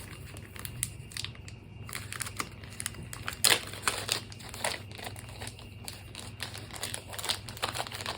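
Plastic packaging crinkling in irregular crackles as a small wrapped item is handled and worked open by hand, with the loudest crackles about three and a half seconds in.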